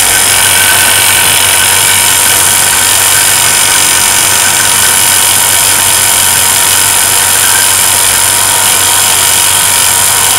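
Electric vacuum pump running steadily, pulling a vacuum on a sealed glass jar: a loud, even hiss over a constant low hum.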